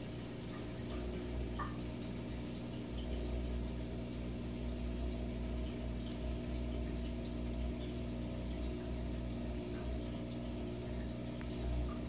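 Jenn-Air dishwasher running its Quick Wash cycle behind the closed door: a steady low motor hum with water moving inside.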